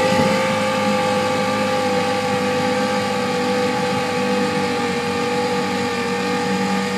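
Outboard motor pushing an inflatable dinghy, running steadily at cruising speed, its pitch sinking slightly over the seconds, over a hiss of wind and water.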